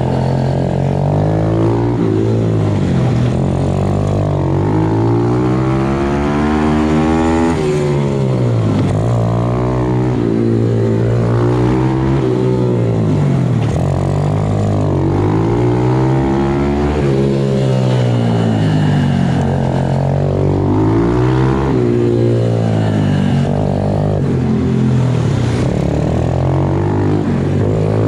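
MRF 120 RC pit bike's single-cylinder engine heard from on board. It revs up and drops back again and again, every few seconds, as the throttle opens and closes.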